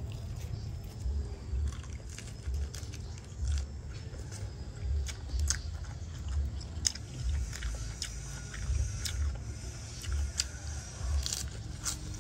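Close-miked chewing and biting of grilled chicken blood, with a steady chewing rhythm a little under a second per chew and sharp crunchy clicks scattered through it.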